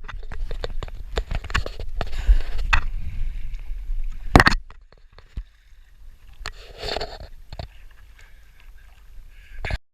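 Water sloshing around a canoe with knocks against the hull and wind rumbling on the microphone, a sharp loud knock about four seconds in; after that it turns much quieter, with only a few faint sounds.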